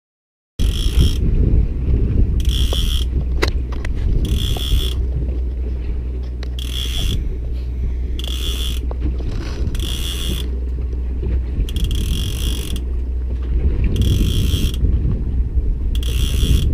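Heavy offshore fishing reel ratcheting in repeated bursts, about one every two seconds, as the rod is worked against a hooked shark, over a steady low rumble.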